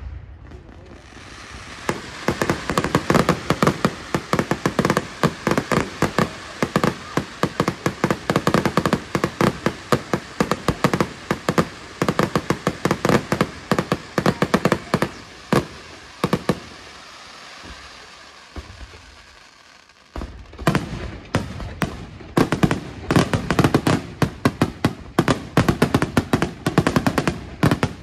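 Fireworks display: rapid volleys of bursting shells and crackling, many sharp reports a second. The firing thins to a lull a little past halfway, then starts up again in a fast string of reports.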